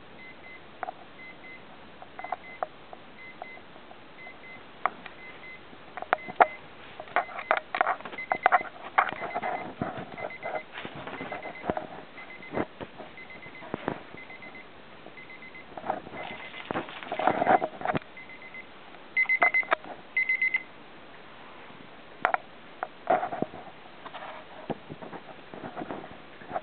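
An alarm clock beeping in short tones that repeat about every two-thirds of a second. The beeps grow louder about 19 seconds in, then stop. Irregular bursts of rustling and snuffling from a dog come and go over the top.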